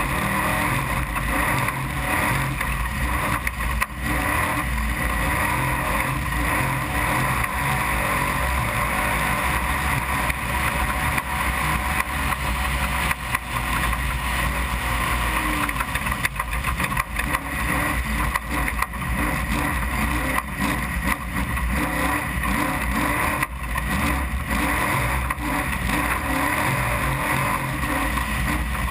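Desert trophy truck's engine running hard at speed, a continuous loud drone with small surges.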